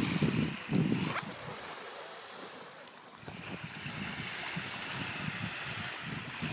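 Wind buffeting the microphone, heaviest in the first second, over a steady hiss of small surf washing on a sand beach.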